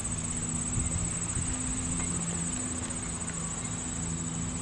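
A steady, high, finely pulsing chorus of insects, with soft footsteps and a low steady hum beneath it.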